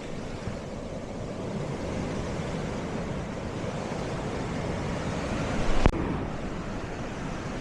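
Sea waves washing on the shore, a steady rush, with wind on the microphone. A single sharp knock about six seconds in.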